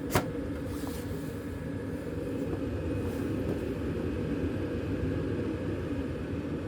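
Carrier gas furnace starting its heating cycle: a sharp click, then a steady low motor hum as the furnace comes on, growing slightly louder about two seconds in.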